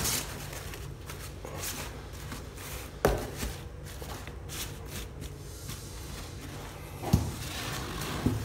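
Disposable absorbent underpads rustling and crinkling as they are pulled out, unfolded and spread in a cardboard box, with a sharp knock about three seconds in and a couple of softer knocks near the end.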